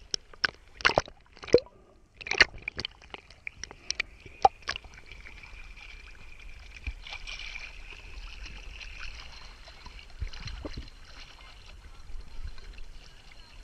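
Surface water sloshing and splashing against a camera bobbing at the waterline: a run of sharp splashes in the first five seconds, then a steadier wash of water with a faint high whine.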